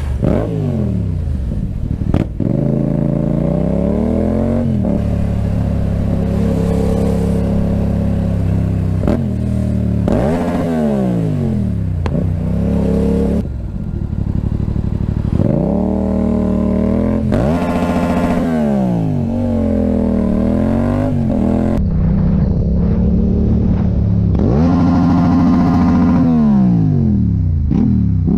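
Motorcycle engine pulling hard through the gears: its pitch climbs steeply, drops at each gear change and climbs again, over and over.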